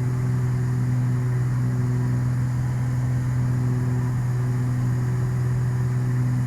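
Twin six-cylinder Continental IO-550 piston engines of a Beechcraft G58 Baron running steadily at climb power, heard inside the cockpit as an even, low drone with a few fainter steady tones above it.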